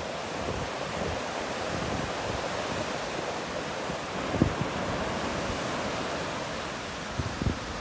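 Surf washing on a beach, with wind buffeting the microphone. A brief thump about four and a half seconds in.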